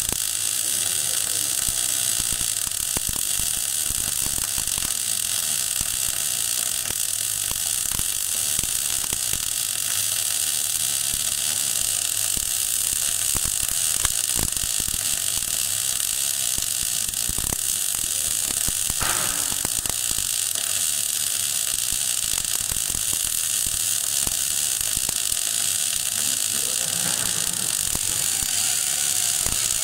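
MAG (gas metal arc) welding arc running a vertical-up weld pass on steel plate: a steady crackling hiss full of small sharp pops, with one louder pop about halfway through.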